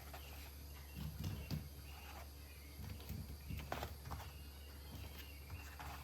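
Faint, scattered soft knocks and shuffling, like footsteps and objects being handled during house cleaning, over a low steady hum.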